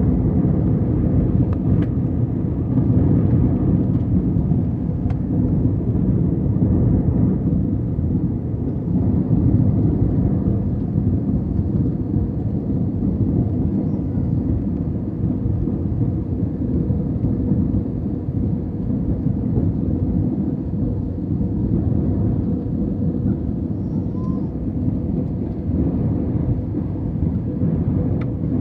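Jet airliner cabin noise at a window seat during descent: a loud, steady low rumble of engines and airflow with a faint constant hum.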